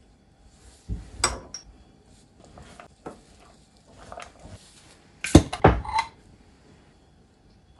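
A spoon and a knife clinking and tapping against a stainless steel mixing bowl while a filling of minced meat, rice and onion is seasoned and mixed by hand. There are a few separate knocks, and the loudest cluster comes a little past the middle.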